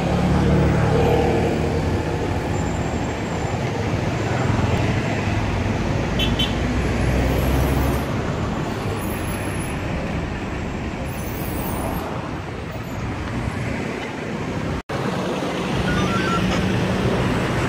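Road traffic noise: a steady mix of vehicle engines running and passing, with a low engine hum that is strongest in the first half. The sound cuts out for a moment near the end.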